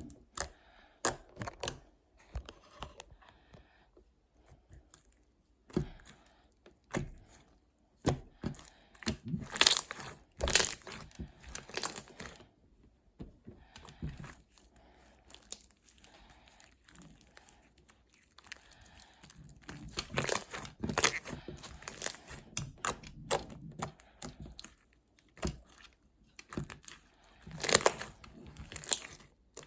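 Irregular handling noises at close range: crinkling, tearing and clicking in short bursts, loudest about ten seconds in and again near the end.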